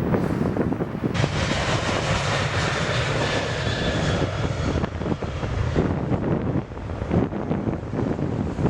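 Jet engines of a Lufthansa Boeing 747-8 airliner, a loud rush with a faint high whine, that comes in about a second in and dies away about six seconds in. Wind buffets the microphone throughout.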